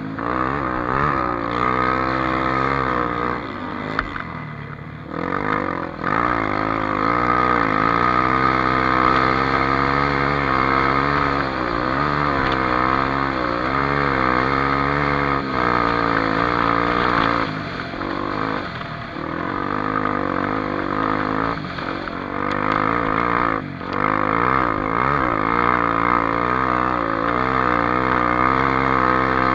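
Honda XR Tornado dirt bike's single-cylinder engine running under riding load, its revs rising and falling continuously, with a few brief drops where the throttle is eased off.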